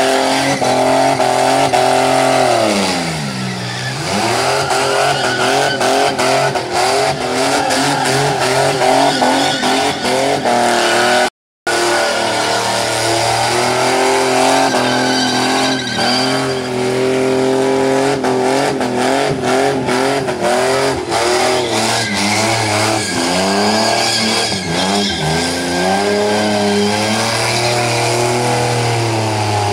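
Mazda wagon's engine held at high revs during a burnout, with the rear tyres spinning. The pitch swings up and down as the throttle is worked: it sinks deeply and climbs back a few seconds in, then wavers quickly later on. The sound cuts out completely for a moment a little before the middle.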